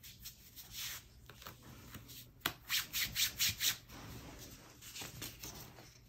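A hand rubbing a freshly applied strip of kinesiology tape down onto bare skin to set the adhesive. Soft scuffing, then a quick run of about seven brisk rubbing strokes between about two and a half and four seconds in.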